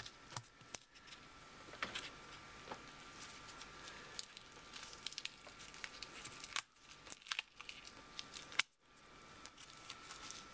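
Adhesive central-line dressing being peeled off a training manikin's chest with gloved fingers: faint crackling and tearing of the sticky tape and gauze, with a sharper crackle about eight and a half seconds in. A faint steady hum lies underneath.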